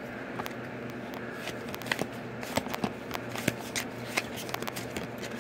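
Weiss Schwarz trading cards being flipped through by hand: a quick, irregular run of sharp card snaps and flicks that starts about a second and a half in.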